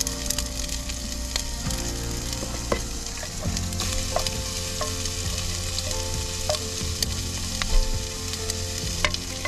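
Food sizzling in oil in a frying pan while it is stirred, with scattered clicks of the utensil against the pan.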